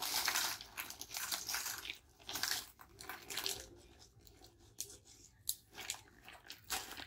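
Crinkling of a clear plastic snack bag and crunching of crisp snacks as they are handled and eaten, coming in irregular bursts that are densest in the first few seconds.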